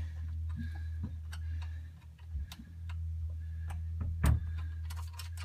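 Irregular clicks and light taps of metal hardware being handled while an exhaust riser pipe is fitted into place, with one heavier knock about four seconds in, over a steady low hum.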